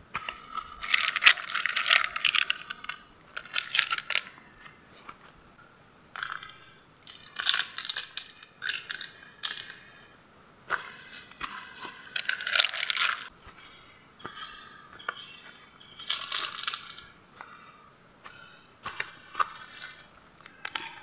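Dry leaf litter crunching and rustling as a person walks and moves through it, in bursts of a second or two with short pauses between.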